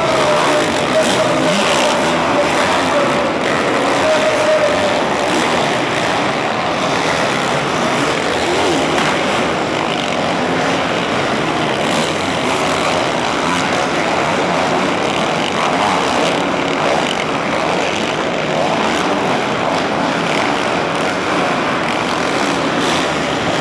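Several supercross dirt bikes racing round an indoor arena track, their engines revving up and backing off in a continuous din, with wavering engine pitch early on.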